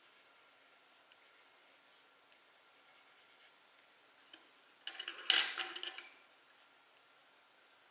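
A short burst of rubbing and light clattering about five seconds in, lasting about a second, over faint room hiss.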